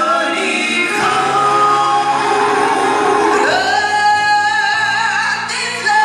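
Male gospel singer singing through a microphone and PA system, with long drawn-out notes and a wavering held note in the second half.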